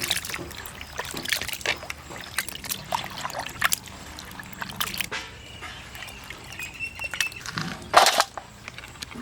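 Water trickling and sloshing with scattered clattering knocks, and one louder knock near the end.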